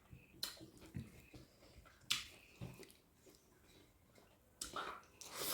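Faint eating sounds: a handful of short, sharp mouth clicks and smacks from chewing, spaced irregularly, with a closer cluster near the end.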